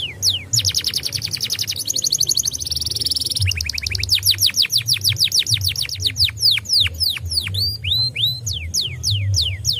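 Domestic canary singing a long, continuous song in rolling tours. It opens with a fast trill of repeated falling notes, moves into a buzzy rattling phrase, then slower falling whistles, and ends on rising chirps.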